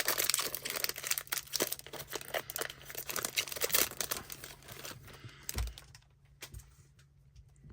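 A foil trading-card pack wrapper crinkling and tearing as it is worked open with difficulty, a dense crackle for about five seconds, then dying away. There is a low thump about five and a half seconds in.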